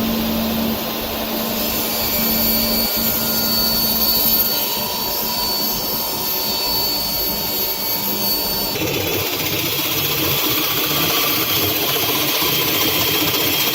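A power tool running steadily, its sound shifting about nine seconds in.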